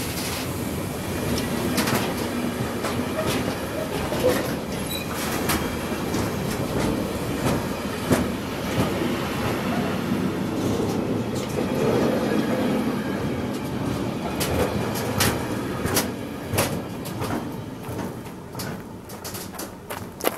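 Container freight wagons rolling past close by: a steady rumble of steel wheels on rail, broken by sharp clicks and knocks as the wheels cross rail joints. The sound fades away near the end as the last wagon goes by.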